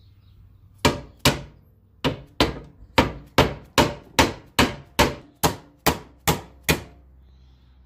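A hammer striking a wooden block to drive a new front crankshaft oil seal into a stamped steel timing cover held in a vise. There are two blows, then after a short pause a steady run of about a dozen at roughly two and a half a second, seating the seal flush.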